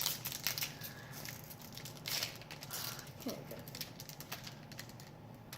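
Sealed wrapper of a hockey card pack crinkling as it is gripped and pulled at in a failed attempt to open it: quick, irregular crackles, busiest in the first two seconds or so.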